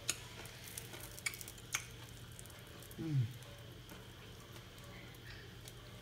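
Crisp crackles of deep-fried field loach being broken apart by hand, a few sharp cracks in the first two seconds. A short murmured voice sound comes about three seconds in, over a faint steady hum.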